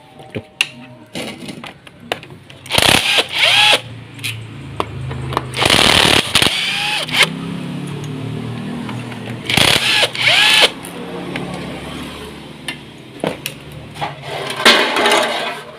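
Handheld power driver spinning out the bolts of a cover on a Yamaha Vixion motorcycle engine, in four bursts of about a second each.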